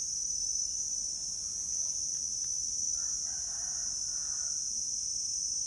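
Steady high-pitched insect drone, with a rooster crowing once about three seconds in for about a second and a half.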